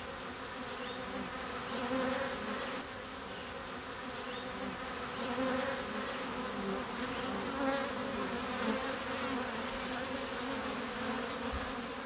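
Honey bees buzzing in numbers around a hive entrance: a steady, many-voiced hum that wavers slightly in pitch.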